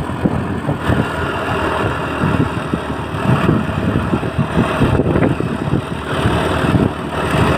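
Bus engine running steadily with an uneven low rumble; no horn is sounding.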